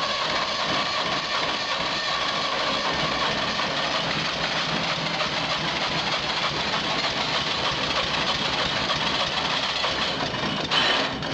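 Air-cooled Wisconsin engine of an old Bush Beaver wood chipper running steadily just after a cold start. There is a brief louder burst near the end.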